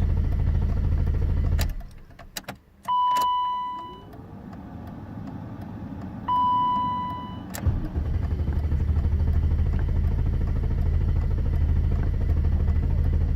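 A BMW E32's M30 straight-six being cranked on the starter without catching, the hard-start fault. The cranking stops with clicks about two seconds in, a dashboard chime sounds twice a few seconds apart, then after a click the cranking starts again about eight seconds in.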